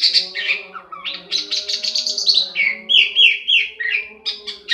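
Pied starling (jalak suren) singing: rapid runs of chattering high notes, with a few downward-sliding whistled notes about three seconds in.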